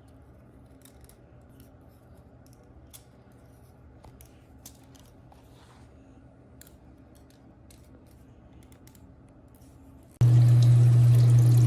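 Faint scattered clicks and small taps, then about ten seconds in a loud steady rush of running water with a low hum starts suddenly.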